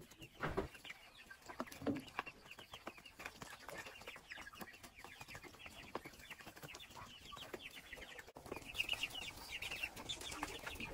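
A flock of chickens clucking, with many short, high, falling chirps, a little louder in the last few seconds.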